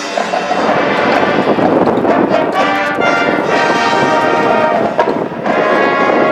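High school marching band playing: brass holding loud sustained chords that move to new chords every second or two, with a short break about five seconds in before the next chord comes in.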